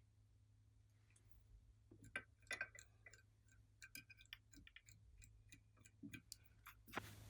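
Slime being handled: faint, irregular sticky clicks and small pops, thickest from about two seconds in, over a low hum.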